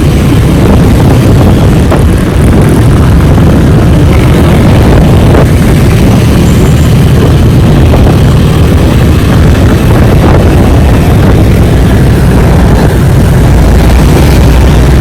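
Loud, steady rumble of riding a Honda Click 125i scooter: wind on the microphone with engine and road noise beneath.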